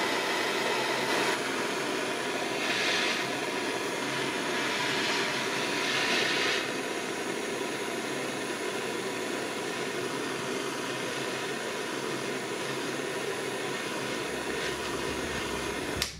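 Handheld butane jet torch burning with a steady hiss as its blue flame heats a steel scissor handle.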